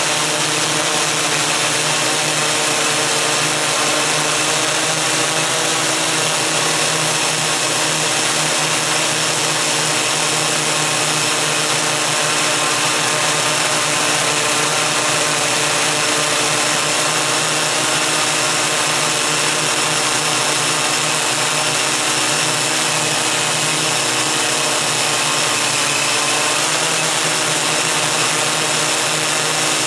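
Electric motors and propellers of a MikroKopter Koax-Quadro X8 coaxial octocopter, heard from the camera it carries, humming steadily as it hovers. The pitch dips and shifts briefly a few seconds before the end.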